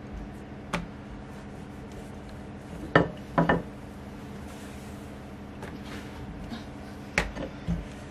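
Wooden rolling pin knocking and rubbing on a floured wooden board while chapati dough is rolled out: several short sharp knocks, the loudest about three seconds in, over a steady low hum.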